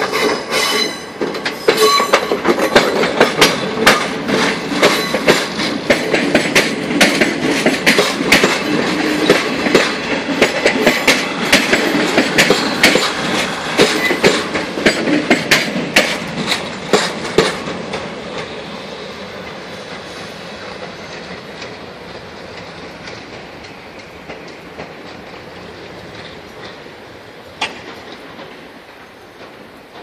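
Renfe class 446 electric multiple unit rolling slowly through a yard, its wheels clicking and clanking over the rails, with brief wheel squeals in the first couple of seconds. The clatter is loudest as the train passes and dies away over the last ten seconds as it moves off, with one sharper knock near the end.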